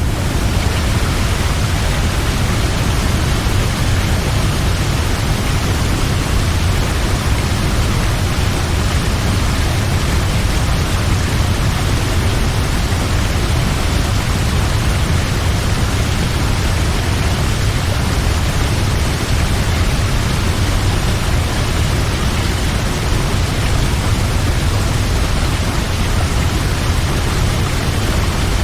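Large waterfall: water falling with a steady, unbroken rush, heaviest at the low end.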